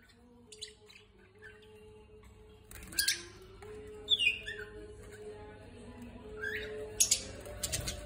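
Caged budgerigars chirping and squawking in short, sharp, scattered calls, a few of them loud, with a falling chirp about four seconds in.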